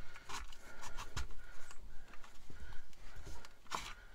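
Handling noises from electrical work: Romex cable rubbing and scraping as it is pulled through a hole in drywall, and a plastic electrical box being picked up. Scattered light clicks and knocks, with a louder rustle near the end.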